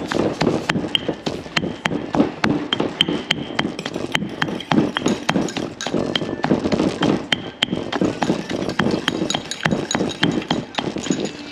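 Stone pestle pounding curry paste in a granite mortar: a steady run of knocks, about two a second.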